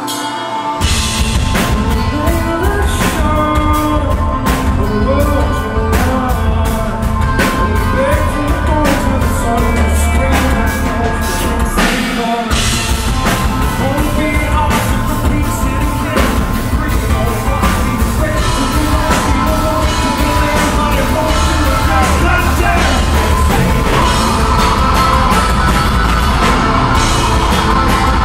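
Live progressive metal band playing loud, heard from the audience: electric guitar, bass and drum kit with a man singing. The full band comes in about a second in, with a brief break in the low end about halfway through.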